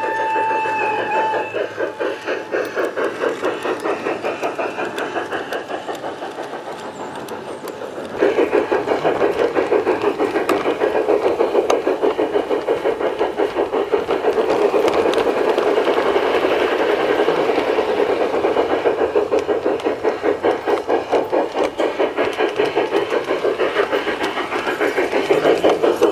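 LGB Mallet model steam locomotive running on garden-railway track: a steady whistle note that stops about a second in, then a continuous rhythmic running beat of about three a second, louder and rattlier from about eight seconds in.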